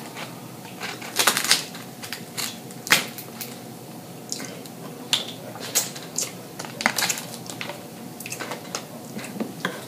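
Crab leg shells cracking and snapping as they are broken open and picked by hand: scattered sharp clicks and cracks, with a quick cluster about a second in.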